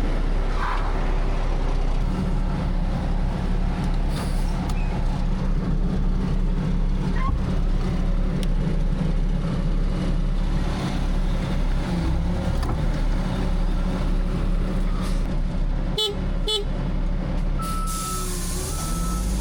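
Heavy equipment engine running steadily at a constant pitch, with two short sharp sounds about three seconds before the end.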